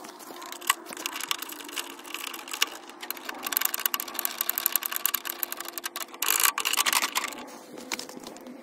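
Cordless drill running, driving a Yardforce LM C38 cylinder mower's reel backwards through a socket adapter on the spindle bolt for backlapping, with a dense rattle of clicks from the turning reel.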